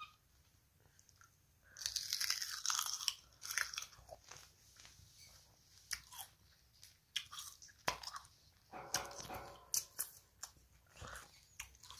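Biting into and chewing a crunchy unripe green sour plum: a dense crisp crunch about two seconds in, then scattered sharp crunches and wet mouth clicks as it is chewed and nibbled.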